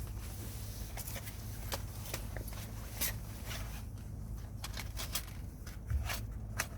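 Steady low rumble of strong wind, with scattered sharp clicks and scrapes of things being handled.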